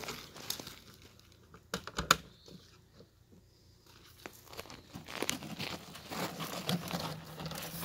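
Latches on a Ridgid wet/dry shop vac's plastic power head clicking open and the head being lifted off its stainless steel drum: a few sharp snaps, the loudest about two seconds in, then a quieter stretch and scattered small clicks and rustles of handling.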